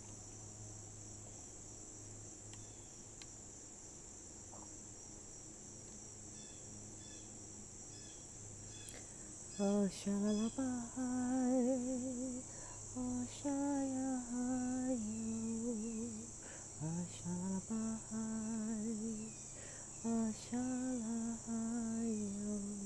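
A steady high-pitched drone of insects such as crickets runs throughout. About ten seconds in, a woman begins humming a slow, wavering melody in long held notes.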